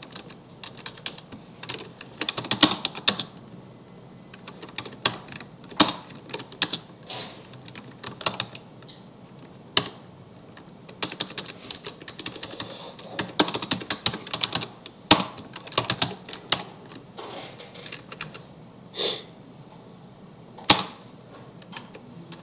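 Typing on a computer keyboard: irregular runs of key clicks separated by short pauses, with a few louder single key presses.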